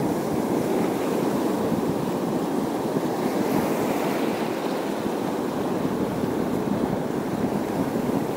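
Sea surf washing steadily against a rocky shore.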